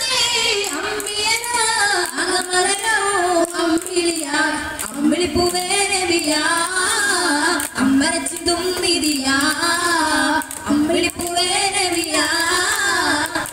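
A devotional song praising the Prophet, sung in a high, child-like voice with musical backing, its melody gliding continuously.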